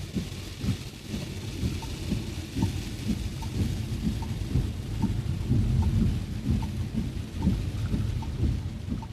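Heavy rain drumming on a car's body, with the low rumble of the car driving over a wet road and the hiss of rain and spray. A faint, regular tick comes in about two seconds in and repeats a little more than once a second.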